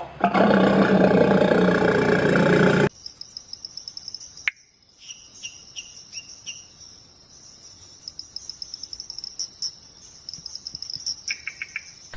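A loud animal call cuts off suddenly about three seconds in. It is followed by steady, high-pitched insect chirping like crickets, with a few short bird chirps.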